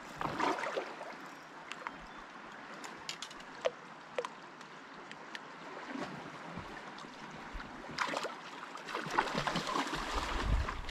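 Water lapping and splashing around kayaks on a river, with a few light knocks three to four seconds in; paddle strokes splash louder near the end.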